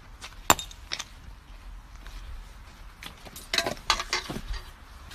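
Footsteps crunching on dry ground: a few irregular steps, with a sharp crunch about half a second in and a cluster of crunches a little past the middle.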